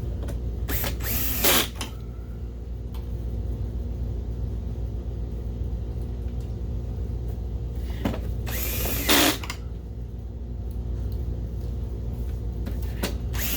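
Cordless drill-driver with its clutch set to 3 driving screws into a projector's front case, running in two short bursts about seven seconds apart. A steady low hum lies beneath.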